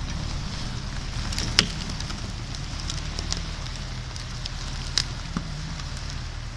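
MTZ tractor's diesel engine running steadily under load as it drags a bundle of logs, with scattered sharp snaps and cracks of branches breaking under the logs and tyres, the loudest about one and a half seconds in and another near five seconds.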